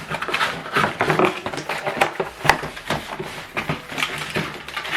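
Rustling, crinkling and light knocks of packaging being handled while items are taken out of a printer box: a quick, irregular run of small clicks and scrapes.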